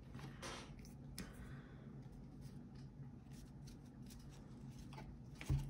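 Faint rustling and flicking of baseball trading cards being handled and slid one behind another, with a soft bump near the end.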